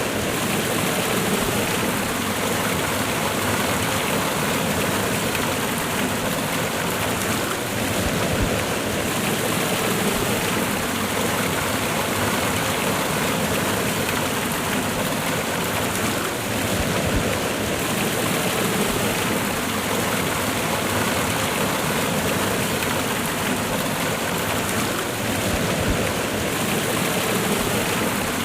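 Waterfall cascade: water rushing steadily over rocks in a continuous, even roar.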